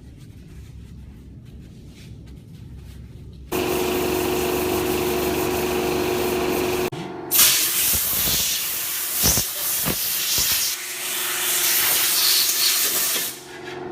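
Workshop parts-washing machine running. Its pump starts suddenly about 3.5 seconds in with a steady hum. About 7 seconds in a loud hissing spray of wash fluid begins, and it stops just before the end.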